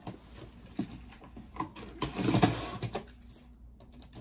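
A cardboard shipping box being opened by hand: irregular rustling and scraping of cardboard and packaging, loudest about halfway through.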